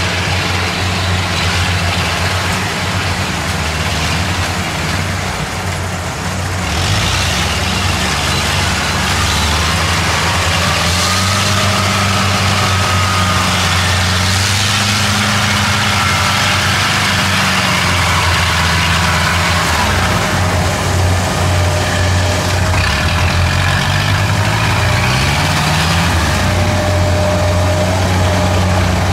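Kubota DC70 combine harvester's diesel engine running steadily while the machine works the rice, its pitch dipping and rising again a few times. A broad rush of machinery noise swells about seven seconds in.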